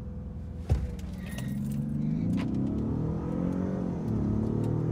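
Car engines running at low speed as the cars line up for a drag race, the engine note slowly rising in pitch, dipping, then rising again. There is a single sharp knock about a second in and a few light clicks.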